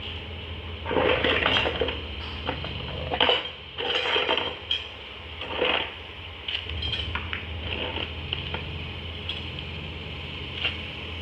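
Metal parts clanking and rattling in irregular bursts over a steady low machine hum, loudest in the first half.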